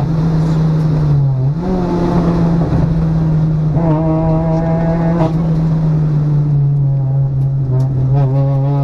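Citroën DS3 R1 rally car's engine running hard at high revs on a special stage, heard from inside the cabin with road and tyre noise. The pitch holds steady apart from a brief dip and rise about a second and a half in.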